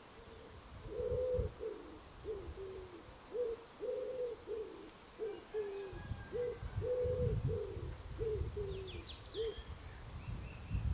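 Pigeon cooing in three repeated phrases of low coos, each phrase opening with a longer coo. A low rumble comes in about halfway through, and another small bird chirps briefly near the end.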